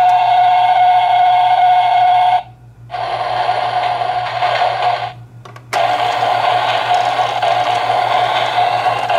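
Electronic sound effects from a toy shinkansen driving console's small speaker. A button press sets off a steady electronic ringing that lasts about two and a half seconds. After a short pause comes a second, noisier effect, and after another pause, about six seconds in, a continuous running-train sound starts as the throttle lever sends the toy train around its track.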